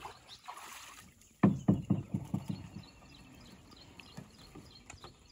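Wooden fishing boat knocking as it is handled at the water's edge: a quick run of about six hollow knocks about a second and a half in, the first the loudest and the rest fading.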